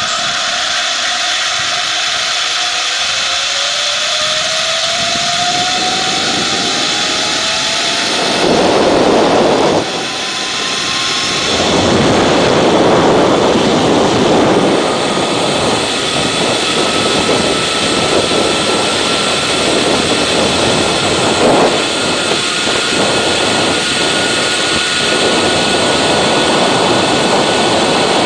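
Zip line trolley pulleys running along the steel cable, a whine that climbs slowly in pitch as the rider gathers speed, under loud rushing wind on the microphone that surges from about eight seconds in.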